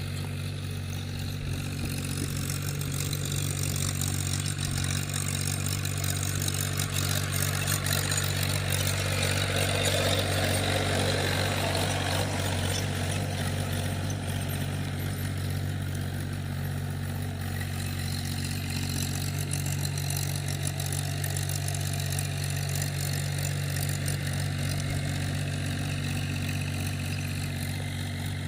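Farm tractor engine running steadily at a constant speed, growing louder for a few seconds about a third of the way in.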